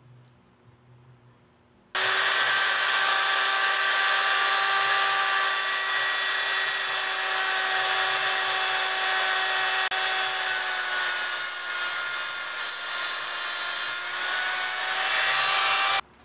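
Angle grinder running against the rusty steel bicycle rack, stripping off the rust, a steady grinding noise over the motor's whine. It starts about two seconds in and stops abruptly near the end.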